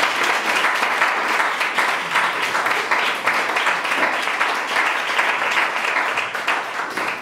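Audience applauding: many people clapping steadily, the applause tailing off near the end.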